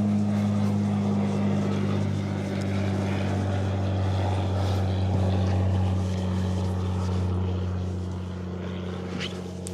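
A small motor running steadily with a low hum, with a rough rubbing noise over it, getting a little quieter near the end.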